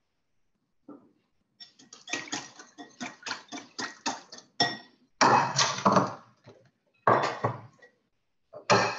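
Kitchen work at a cutting board: a quick run of light knocks, about four or five a second, for about three seconds, then a few louder clatters and bumps of utensils and a bowl.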